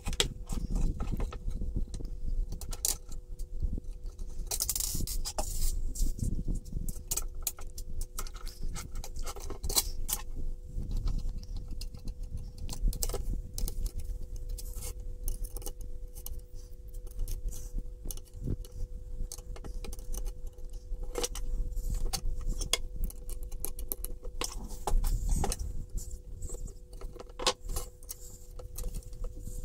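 Hands handling and assembling small 3D-printed plastic parts and screws on a plastic control box: irregular clicks, taps and scrapes throughout, over a steady hum.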